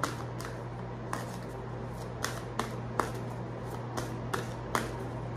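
A deck of goddess oracle cards being shuffled by hand: a string of short, irregular card snaps, roughly every half second to a second, over a steady low hum.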